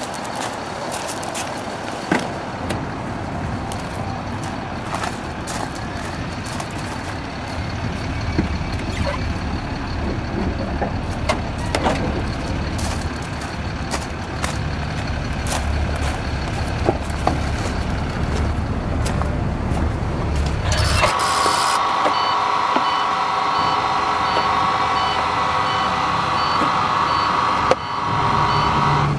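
Low rumble with many scattered clicks. About 21 seconds in the rumble stops and a steady high whine comes in, with a regular on-off beeping above it.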